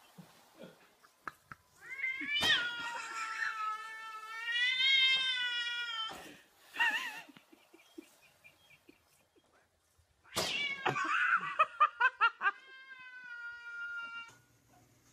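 A cat yowling: one long, wavering call, a short cry after it, and a second long call starting about ten seconds in. These are the drawn-out caterwauls a cat gives when squaring up to a rival, here aimed at an inflatable cat.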